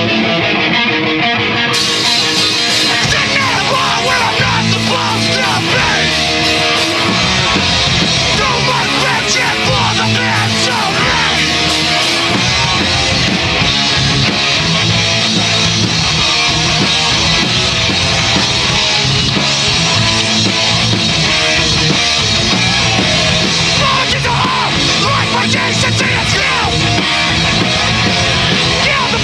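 Rock band playing loudly, heard from the drummer's seat: drum kit and cymbals close up, with electric guitars.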